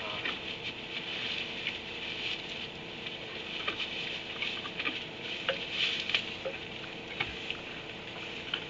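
Rustling and crackling in wood-shavings bedding, with irregular small clicks and crunches, as a donkey noses and eats through it with its head down. A steady hum runs underneath.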